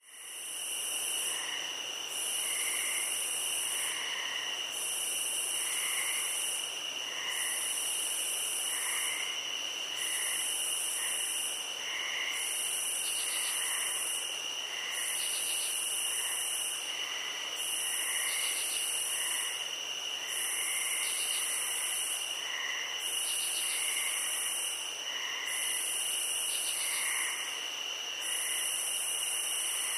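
Night chorus of crickets: steady high-pitched trilling runs on without a break, while a still higher buzz swells and stops in turn about every two and a half seconds. Softer, lower chirps come in about once a second underneath.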